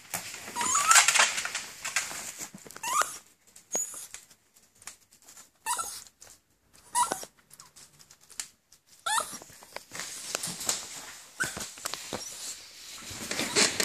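Chihuahua whining in short rising whimpers every second or two, mixed with rustling and breathy noise. The dogs are locked in a mating tie.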